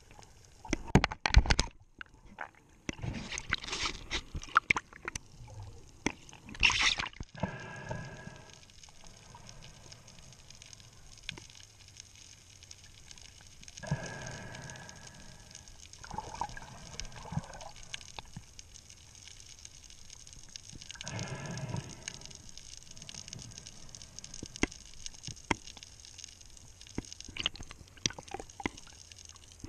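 Underwater sounds picked up by a diver's camera: gurgling and bubbling water, with sharp knocks in the first few seconds and several swelling bursts of bubbling later.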